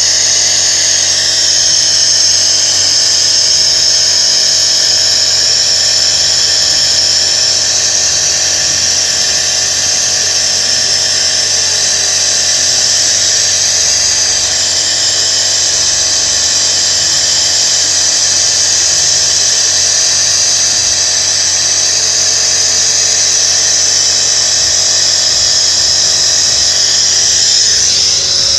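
Car petrol engine running at raised revs, its throttle held open by hand, during an engine flush with cleaning fluid drawn through a tube into the intake. A steady high-pitched whine sits over the engine hum, and the pitch shifts briefly near the end.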